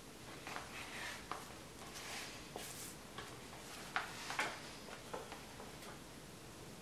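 Faint crinkling and rustling of plastic cling film being handled on a wooden board, with a few soft taps and clicks as the sheet of dough is lifted onto it.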